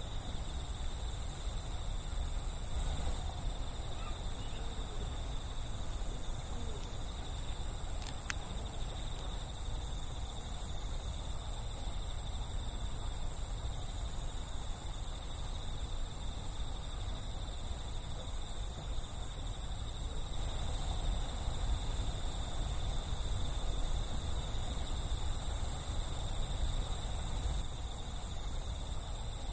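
Crickets trilling steadily, a thin high continuous tone, over a low outdoor rumble; a faint click about eight seconds in.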